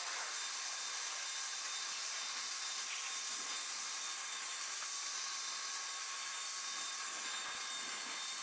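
Steady hiss with faint, high, steady whines, as of turbine machinery idling on an airfield apron; it does not change while the C-5M's forward cargo ramp lowers.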